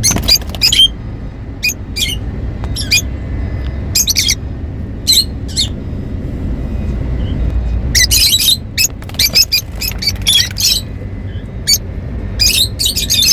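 Pet lovebirds chirping and squawking in short, sharp, high calls, coming in quick bursts with a dense flurry of chatter about eight seconds in, over a steady low background hum.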